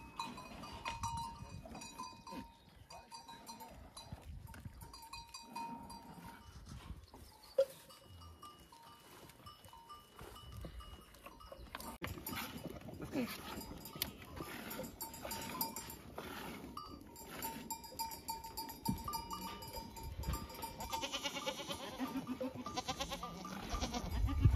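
Flock of goats and sheep in a pen, with livestock bells ringing on and off and goats bleating now and then. In the second half, quick regular squirts of milk hiss into a metal pot as a goat is milked by hand. A single sharp knock comes about a third of the way through.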